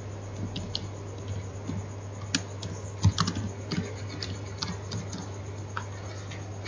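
Typing on a computer keyboard: irregular key clicks, some louder than others, over a steady low hum.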